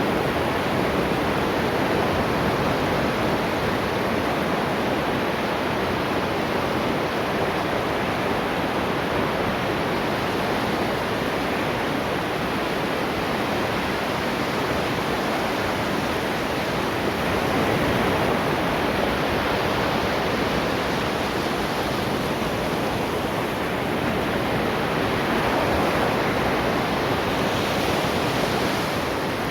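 Ocean waves washing onto the shore in a steady rush of surf, swelling a little about halfway through and again near the end.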